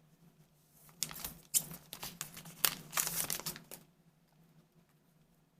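Trading cards being handled and slid against one another: a run of dry rustles and clicks lasting about three seconds, starting about a second in.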